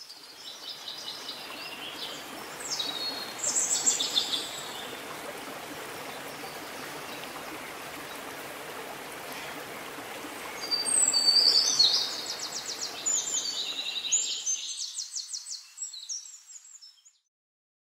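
Birds chirping and trilling over the steady rush of a stream: a burst of calls about three seconds in, and a longer run of fast trills from about ten seconds on. The water sound fades out near the end, with the birds stopping a little after.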